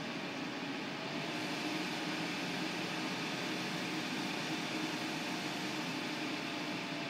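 ATI Radeon 5870 graphics card cooling fan running steadily: an even rushing noise with a faint steady hum under it.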